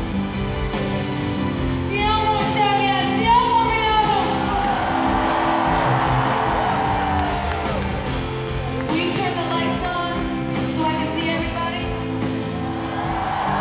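Live pop ballad played through an arena sound system, recorded from the stands: sustained chords with a sung melody, one phrase about two seconds in and another about nine seconds in.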